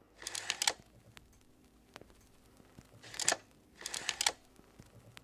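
Quiet, short mechanical clicks and whirrs: one burst just after the start and two close together about three to four seconds in, a camera-shutter-like sound effect as a photo slides onto the screen.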